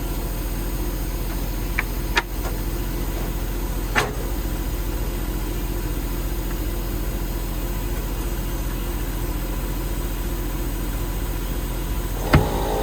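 An engine running steadily at a constant speed, with two sharp knocks about two and four seconds in.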